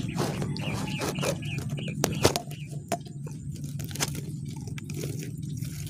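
A mesh fishing net is handled up close with a caught fish in it: rustling and scraping with scattered clicks, and one sharper knock about two seconds in.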